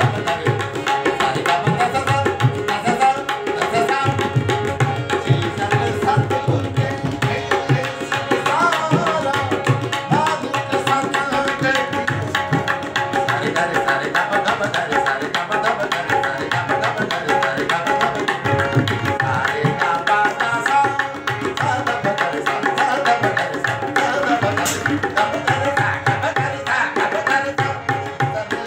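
Tabla and harmonium playing together. The harmonium holds sustained reed tones while the tabla keeps a steady rhythm of strokes, with deep bass strokes from the larger drum.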